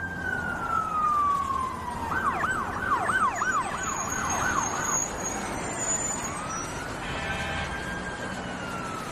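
Emergency vehicle siren: a wail falling in pitch, then a fast up-and-down yelp for about three seconds, then a rising wail that holds and begins to fall again near the end, with a brief steady blare about seven seconds in.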